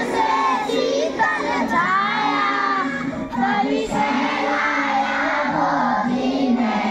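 A group of schoolchildren singing a prayer together in chorus, many young voices at once.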